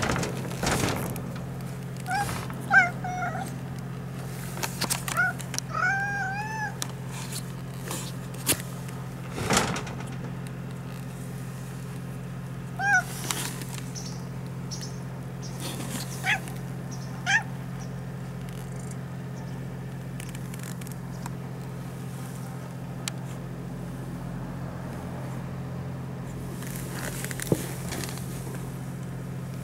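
Orange-and-white cat meowing in a series of short calls, about seven in all, with a longer rising-and-falling meow about six seconds in. A couple of sharp knocks and a steady low hum sit underneath.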